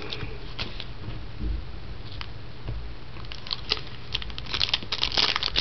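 Trading cards being handled with light clicks, then a card pack wrapper crinkling and being torn open, the crackling growing denser in the last couple of seconds.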